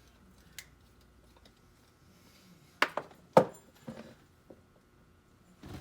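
Sharp metallic clinks and knocks of hand tools against a stuck part on a key machine's motor, with the loudest few strikes about three seconds in and a few lighter taps after.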